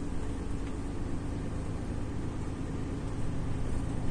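Renault Trucks lorry's diesel engine running at a steady cruise, a constant low drone heard from inside the cab, with the even hiss of tyres on a wet road.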